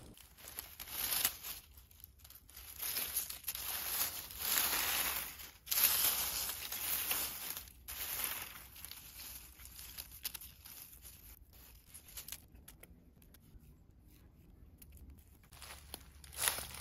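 Dry fallen leaves and twigs rustling and crackling as a hand works through the forest-floor litter to pick a mushroom. The rustling comes in irregular bursts, louder in the first half, then quieter, with a short burst near the end.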